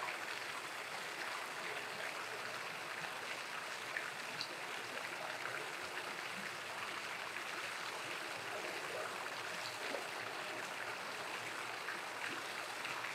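A steady, even rushing noise, like water running in a stream, with a few faint ticks.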